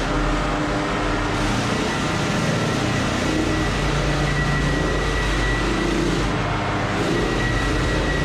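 Floor sanding machine running steadily on pine floorboards, with a thin high whine over a dense grinding noise.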